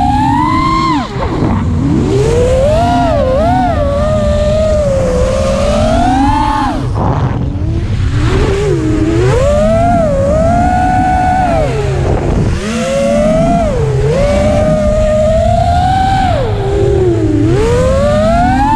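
FPV racing quadcopter's brushless motors and propellers whining, the pitch swooping up and down constantly with the throttle and dropping sharply several times where the throttle is chopped. A steady low rush of air runs underneath, as heard from the drone's onboard camera.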